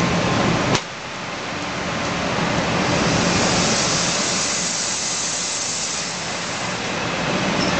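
N700 series Shinkansen train rolling slowly past at close range: a steady rushing hiss that swells in the middle, with a sharp click about a second in, after which the low rumble drops away.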